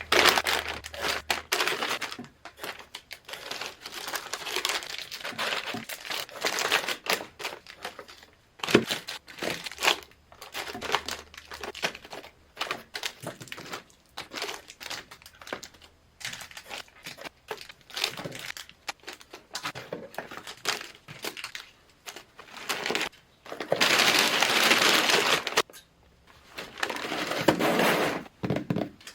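Plastic candy and snack wrappers crinkling and crumpling as packages are handled and opened. There are longer, louder stretches of rustling a little after twenty seconds in and again near the end.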